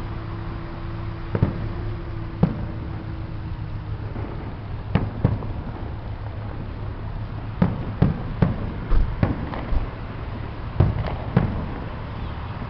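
Fireworks going off in an irregular series of sharp bangs and pops, about a dozen, coming more thickly in the second half, over a steady low background rumble.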